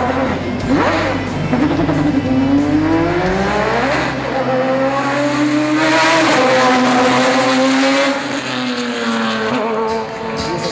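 Ferrari GT race car engine accelerating hard, pitch climbing and dropping back several times as it changes gear, loudest about two-thirds of the way through.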